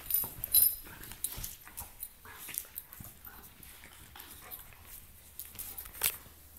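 A Doberman and a brindle dog play-fighting: short high-pitched whines and yips over a scatter of clicks and scuffles, loudest just after the start and again about six seconds in.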